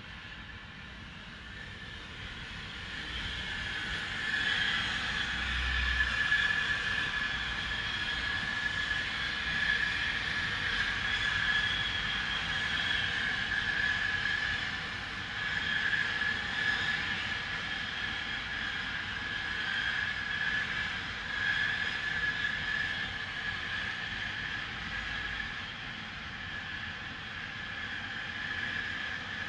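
Continuous loud industrial hissing from a factory, carrying a steady high whistling tone. It swells a few seconds in, then holds, wavering slightly.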